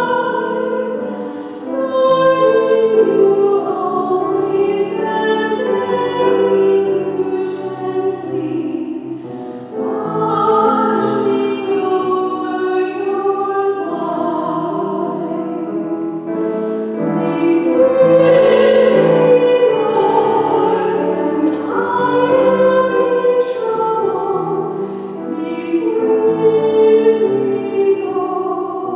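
A woman cantor sings the responsorial psalm solo in long, held notes over held accompanying chords that change every few seconds.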